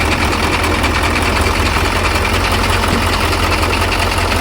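Truck diesel engine running steadily at idle, a fast even low throb, just after a start while the compressor charges the air system.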